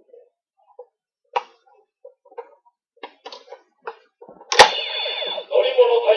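Light plastic clicks and clacks from a card being handled and fitted into a Tensouder toy morpher. About four and a half seconds in there is a sharp snap, the loudest sound, and the toy's small speaker starts playing its electronic card sound effect.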